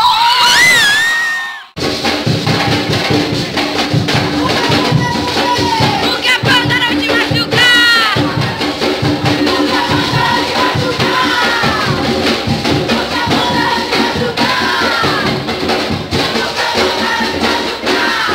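Loud dance music with a steady beat and shaker-like percussion, a crowd shouting and cheering over it. The sound cuts out briefly about two seconds in, then the music runs on.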